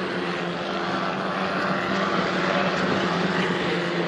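Formula 4 race cars' turbocharged four-cylinder engines running at speed, several cars at once blending into one steady, even drone.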